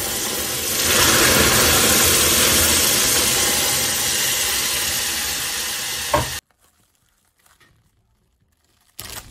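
Cold water poured into a saucepan of hot, bubbling caramelized sugar, hissing and spitting hard. It swells about a second in, eases off slowly, and after a short knock stops abruptly about six seconds in, leaving near silence.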